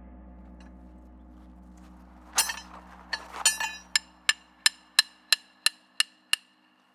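Hammer blows ringing on metal: a few uneven strikes, then a steady run of about eight blows, roughly three a second, each with a bright ringing tone.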